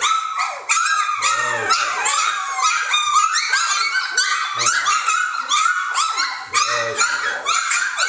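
A litter of three-week-old Jamthund (Swedish Elkhound) puppies whining and yelping together, many short high-pitched cries overlapping without a break.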